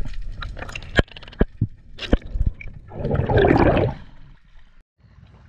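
Water gurgling and sloshing around a camera moving through the sea, with a few sharp clicks, then a loud rush of splashing water for about a second, about three seconds in.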